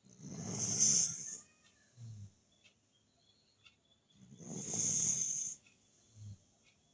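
A sleeping dog snoring: two long, noisy snoring breaths about four seconds apart, each followed about half a second later by a short, low sound.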